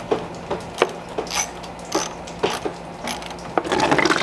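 A screwdriver turning the drain plug on a VW MK3 Jetta radiator gives a series of sharp clicks, roughly two a second. About three and a half seconds in, coolant starts pouring out and splashing into a drain pan as the radiator is drained.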